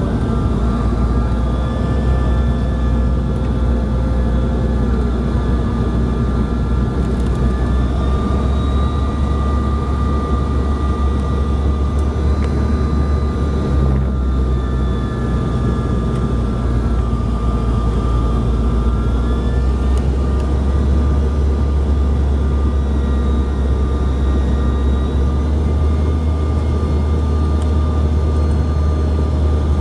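Cabin noise of a CRJ-700 in flight: a steady low rumble with the whine of its rear-mounted General Electric CF34 turbofans, several whining tones sliding gently up and down a few times as the engine speed changes.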